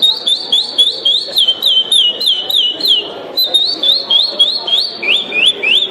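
A man's whistled imitation of the song of the curió (chestnut-bellied seed-finch): a fast run of clear, high notes, each rising then dropping in pitch, about three a second. It breaks off briefly about halfway and ends with three lower notes.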